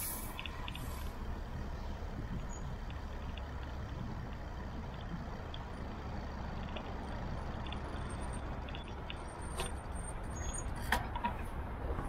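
Steady low rumble of city street traffic, heard while riding along in a bike lane, with faint scattered ticks. A sharp knock comes near the end.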